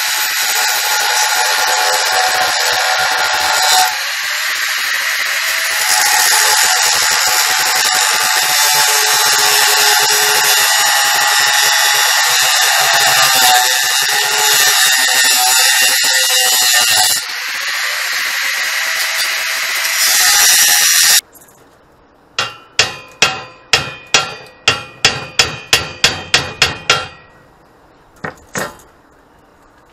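Angle grinder grinding steel on a go-kart frame: a steady high whine and hiss whose pitch shifts as the disc bites, until it is switched off about two-thirds of the way through. Then a hammer strikes the steel frame a dozen or so times in quick succession, about three blows a second and each one ringing, with one more blow a moment later.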